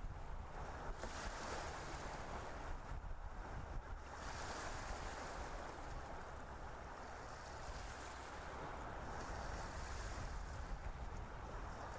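A steady rushing hiss. From about four seconds in it is joined by the crackling rustle of aluminium foil being pressed and crimped over a round baking pan.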